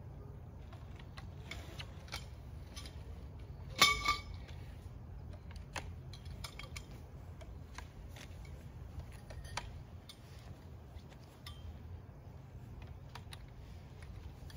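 Greenhouse frame parts being handled and fitted, giving scattered light clicks and clinks, with one louder ringing metallic clink about four seconds in.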